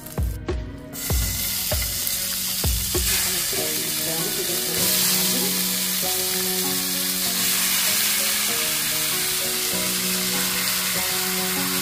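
Raw chicken breast pieces sizzling steadily as they fry in hot bacon fat in a frying pan. There are a few knocks in the first three seconds, and the sizzle swells about five seconds in.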